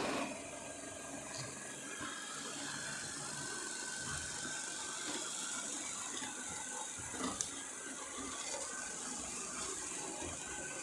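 iRobot Roomba Combo 2 Essential robot vacuum running: a steady whir and hiss with faint mechanical clicks.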